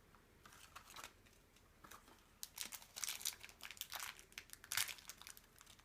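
Packaging being handled and crinkled, with irregular crackles and rustles that grow busier about halfway through.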